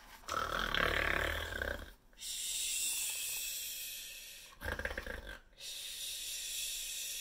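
A woman imitating loud snoring. Two snores, each a rattling snort on the breath in followed by a long hissing breath out.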